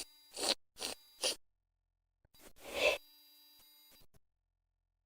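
A girl's quick, sharp breaths in: three short sniffing inhalations about half a second apart, then a longer gasping inhale near the three-second mark. These are the catching breaths of a sneeze building up.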